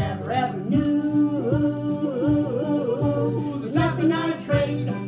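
Children's song: wordless, yodel-like singing that wavers up and down in pitch over acoustic guitar accompaniment.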